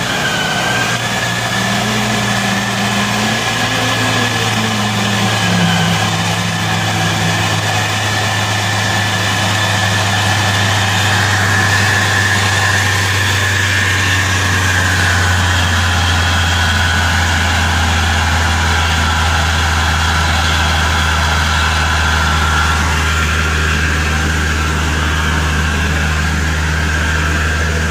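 Truck engine idling steadily, a low even drone with no revving.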